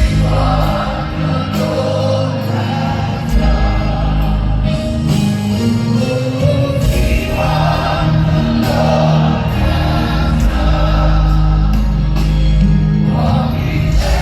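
Live gospel worship music: a choir of voices singing over a band, with sustained deep bass notes that drop out briefly twice.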